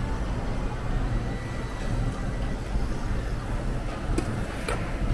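Steady low background rumble, with two light metallic clicks near the end as stainless steel tongs lay raw pork belly on a tabletop barbecue grill.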